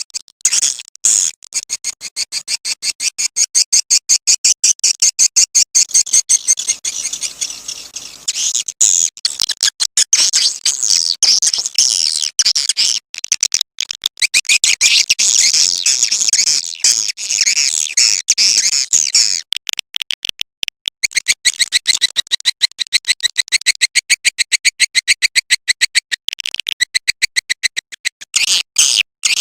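Swiftlet call recording of the kind played to lure swiftlets to a nesting house: a dense, rapid run of high-pitched twittering chirps and clicks, many per second, with brief breaks.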